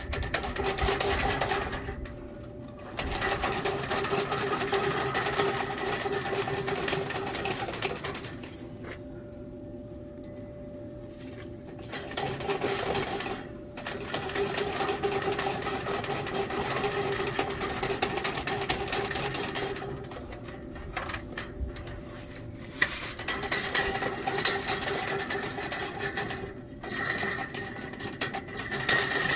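Steel fish tape rattling and scraping inside a dryer vent duct as it is wiggled in and out, in spells with short pauses, over the steady hum of the running dryer.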